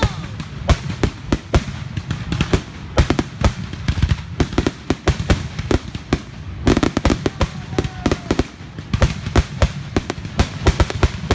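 Dense barrage of fireworks going off: rapid overlapping bangs and crackles, thickest about three seconds in, around seven seconds in, and near the end.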